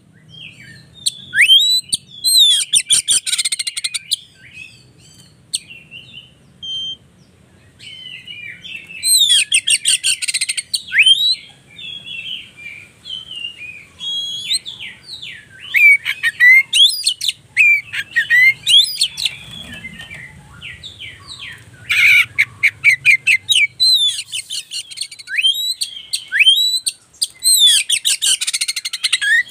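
Oriental magpie-robin (kacer) singing a varied run of sharp whistled notes and rising and falling slurs, broken four times by fast rattling trills.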